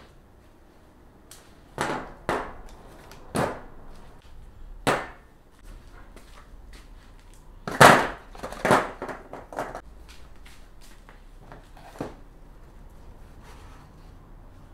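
Plastic electrical parts (modular circuit breakers and relay bases) being taken out of cardboard boxes and set down on a galvanized steel mounting plate: a series of separate knocks and clatters. The loudest is a clatter about eight seconds in, as a box of relay bases is tipped out onto the plate.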